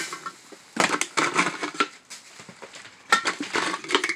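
Rummaging noise from small items being handled: irregular crinkling of plastic and a few short knocks and clinks.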